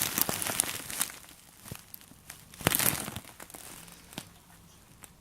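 Packaging crinkling and rustling as it is handled, in two main bursts: one at the start and another about two and a half seconds in, with smaller crackles between.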